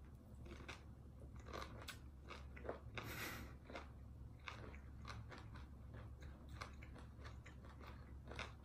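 Faint chewing of raw lime pieces: scattered wet mouth clicks and smacks, with a brief rush of breath about three seconds in.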